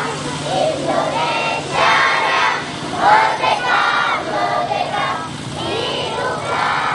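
A group of voices singing together in chorus, high children's voices prominent, over a faint steady low hum.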